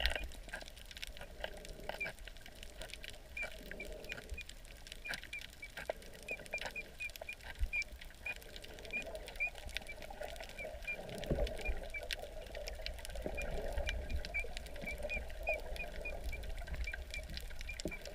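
Underwater sound picked up by a submerged camera: a muffled rumble of water with scattered crackling clicks and a run of short, high chirps a few times a second.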